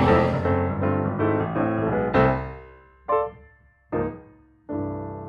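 Keyboard music, piano-like. About two seconds in, the busy playing gives way to four separate struck chords, the last one held and slowly fading out.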